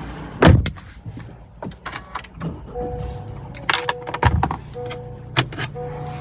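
Sounds of a car cabin: a door shutting with a heavy thump about half a second in and another about four seconds in, sharp clicks from controls, and a repeating two-tone electronic chime from about three seconds in.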